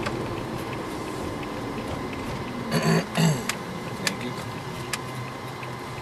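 Steady road and engine noise inside a moving Toyota van's cabin, with a brief throat-clearing sound about three seconds in and a couple of faint clicks after it.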